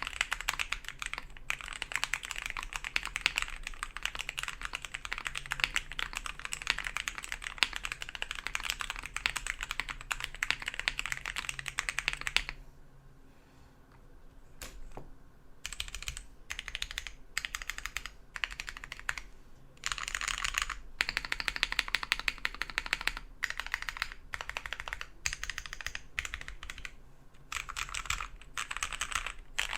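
Akko ACR67 mechanical keyboard with lubed Akko CS Jelly Pink linear switches, PE and plate foam and a two-layer tape mod, under Pink Pudding keycaps, being typed on fast. The typing stops for about three seconds near the middle, then resumes in shorter bursts.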